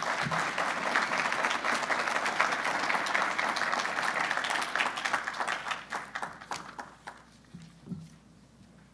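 Audience applauding: dense clapping that holds for about seven seconds, then thins to a few last claps and dies away near the end.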